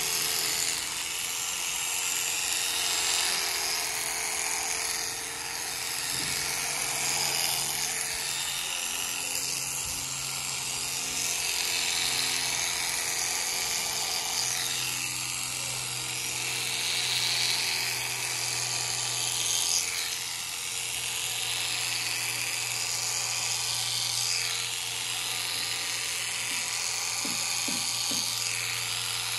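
Handheld electric livestock shears running continuously as they cut through thick llama fleece: a steady motor hum with a high buzzing whine, rising and falling slightly in level as the blades work.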